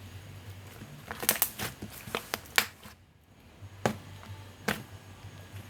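Play-Doh Super Cloud slime being squished and stretched by hand for ASMR, making a run of sharp little clicks and pops, with a brief pause about halfway through.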